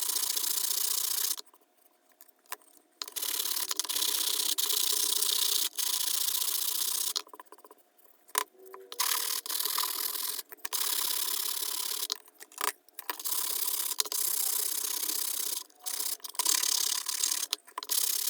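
Wood being sanded: a steady scraping hiss in stretches of a few seconds, stopping and starting several times, as a new wooden piece is blended into the original.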